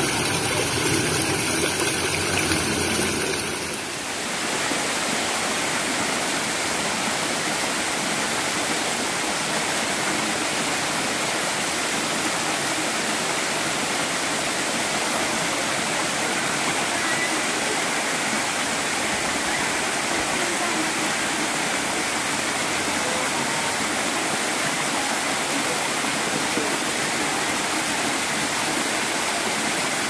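Small waterfall cascading over rocks: a steady rush of falling water. The sound shifts and briefly dips in loudness about four seconds in, then holds even.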